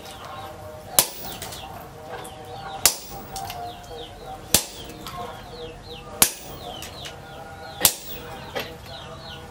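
Sledgehammer blows on a tool held in tongs against a red-hot leaf-spring machete blade on a stump anvil: five sharp metal strikes, about one every second and a half or so, with birds chirping throughout.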